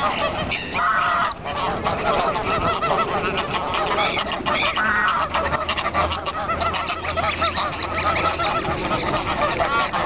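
A crowd of waterfowl calling, many calls overlapping without a break.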